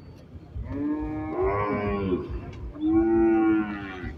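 Cattle mooing: two long calls, the first wavering in pitch with a second animal overlapping it, the second one held steady.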